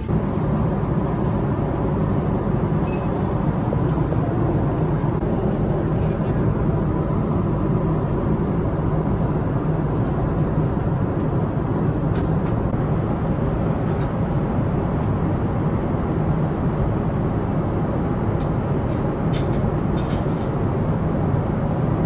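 Steady jet airliner cabin noise, engine and airflow rumble heard inside the cabin, with a few faint rattles near the end.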